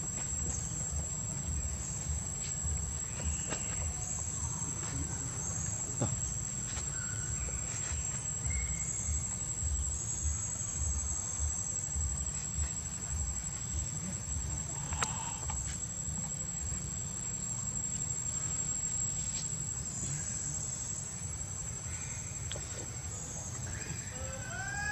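Steady high-pitched insect trill, constant throughout, over a low rumble, with a few faint clicks.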